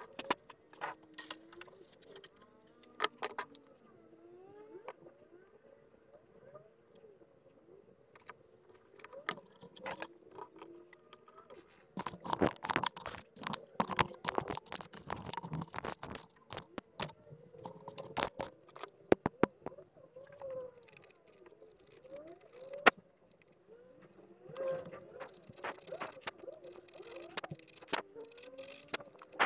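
Small metal parts and a hand screw clamp being handled: irregular clicks, taps and light rattles as spring-loaded carbon brushes are set in the clamp. The clicks come thickest from about twelve to seventeen seconds in.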